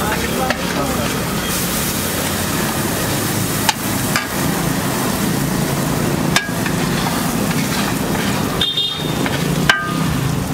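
Egg mixture sizzling on a large flat griddle while a metal spatula scrapes and chops it, with a few sharp clacks of the spatula striking the griddle.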